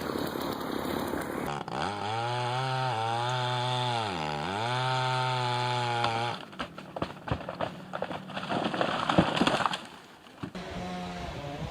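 Chainsaw engine running at a steady speed, its revs dipping briefly and coming back up about four seconds in. It is followed by a string of sharp knocks and cracks, and a small engine running steadily near the end.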